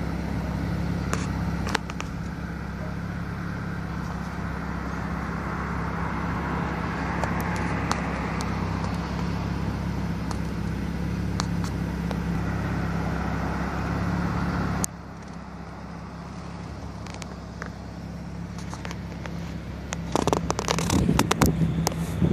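Steady vehicle engine and road noise with a low hum. It drops suddenly about fifteen seconds in, and near the end gives way to loud buffeting and crackling of wind on the microphone.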